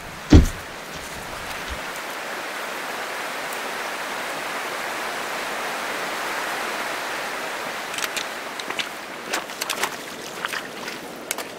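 A single thump just after the start, then a fast-flowing rocky river rushing steadily. From about eight seconds in, boots splash and step through a shallow puddle on a gravel track.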